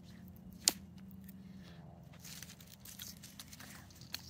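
Faint rustling and small crackles of dry grass and leaves as a dog noses around close by, with one sharp click just under a second in.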